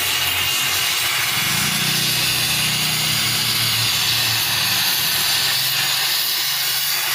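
Gas torch flame blowing a steady hiss as it heats a rivet on a truck chassis rail, the heating stage before the rivet head is formed. A faint low hum runs underneath.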